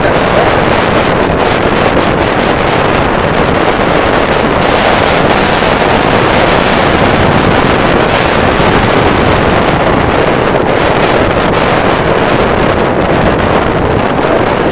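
Loud, steady wind noise buffeting the microphone, mixed with the rush of water along the hull of a Hunter 27 sailboat under sail in a fresh breeze.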